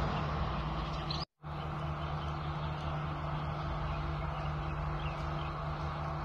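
Steady hum of the girder transporter-launcher's engine and machinery running as the box girder's position is fine-adjusted. The sound cuts out for a moment about a second in.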